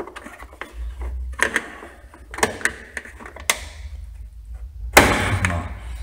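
Pliers clicking and knocking against the plastic housing of a washing machine's pressure switch while pressing for its release clip, with a louder clatter about five seconds in.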